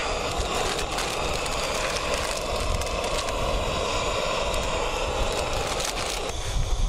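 Primus P136 gas canister stove burning steadily at full flame under a pot of boiling water, giving an even, unbroken hiss. A few low thumps come near the end.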